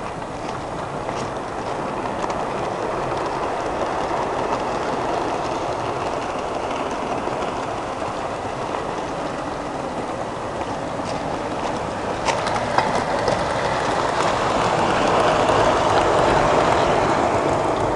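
O gauge tinplate model train, a Bassett-Lowke 4-6-2 Princess Elizabeth hauling Darstaed coaches, running on metal track with a steady rolling rumble. A few sharp clicks come about two-thirds through, and the sound grows louder near the end as the coaches pass close.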